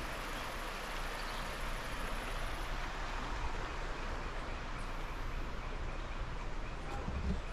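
Steady rush of a shallow, rocky river flowing over stones, with a low rumble underneath and a couple of soft thumps near the end.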